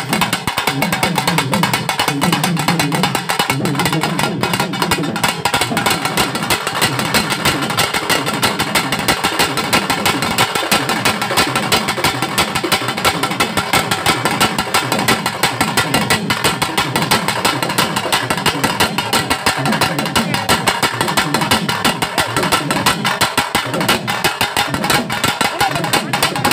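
Pambai drums, the paired cylindrical Tamil folk drums, beaten with sticks by a group of drummers in a fast, dense, unbroken rhythm.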